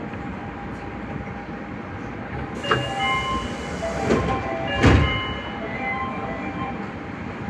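Nagoya Higashiyama Line 5050-series subway train standing at a station platform. About three seconds in, a run of electronic chime tones at shifting pitches sounds, mixed with sudden knocks as the doors shut; the heaviest knock comes about two seconds later.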